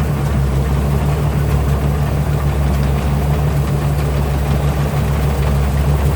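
Combine harvester's Cummins diesel engine running steadily under harvesting load, with a smooth, low, not very roaring note.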